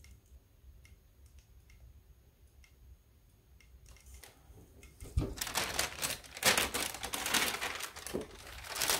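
An iron pressing fabric through parchment paper makes only faint light ticks. About five seconds in there is a thump, then parchment paper rustles and crinkles loudly as it is lifted off the block.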